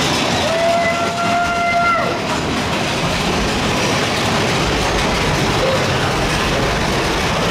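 Big Thunder Mountain Railroad's mine-train roller coaster running on its track, a loud steady rattling rush. A single steady pitched tone sounds for under two seconds near the start.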